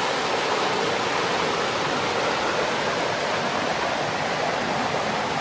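A bubbling brook: creek water running with a steady, even rush.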